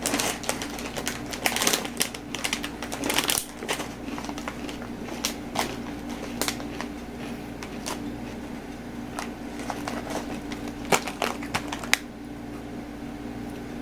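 Crispy fried kangkong (water spinach) chips crunching as they are chewed. The crackles come thick and irregular for the first few seconds, then turn into scattered single crunches, over a steady low hum.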